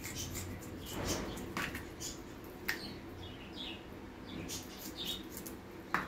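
Scissors snipping through wet raw goat tripe: a run of short, crisp snips with wet handling sounds between them and a few short high squeaks, the sharpest snips about two-thirds of the way in and at the very end.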